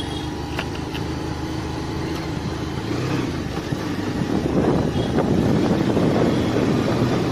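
Motorcycle engine running steadily while riding, with wind rushing over the microphone. The wind noise grows louder about halfway through.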